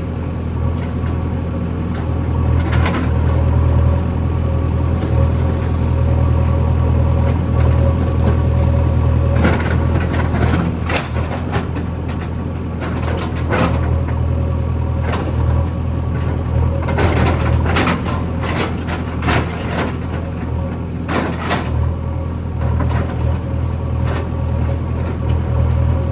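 JCB backhoe loader's diesel engine running steadily with a low hum, overlaid by repeated short clanks and scrapes, clustered through the middle and latter part, as the machine digs.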